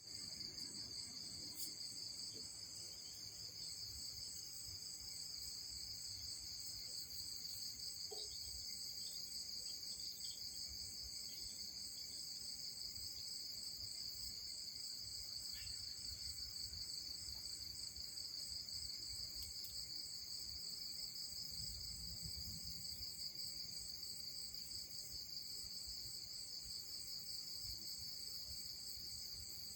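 A steady, high-pitched chorus of insects trilling, with a few faint ticks.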